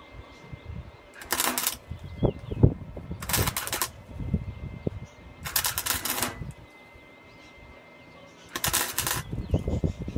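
Gasless flux-core MIG welder arcing on a steel tube: four short bursts of crackling, about two seconds apart, as the joint is stitch-welded.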